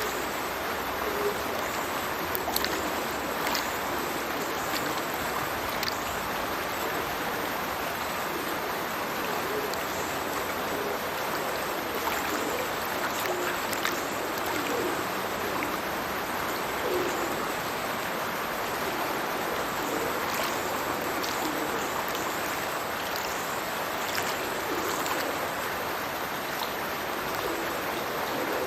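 Stream water pouring from a culvert into a river below: a steady rush of falling water with small gurgles and scattered splashes.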